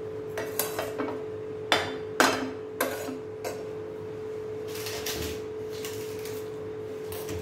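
A knife clinking and knocking against a non-stick frying pan as a slice of butter is cut and set into the pan: a handful of sharp clicks over the first three and a half seconds, then it goes still. A steady hum runs underneath.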